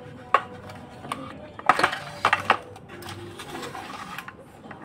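Hard plastic clacks and knocks from an R for Rabbit Rock N Play baby rocker's frame as it is handled and its fabric seat fitted, with a few sharp knocks around the middle.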